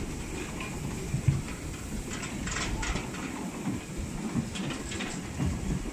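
Wooden goods wagons of a slowly moving train rolling past on the track: a steady low rumble with scattered metallic clicks and knocks from wheels and couplings, the sharpest knock about a second in.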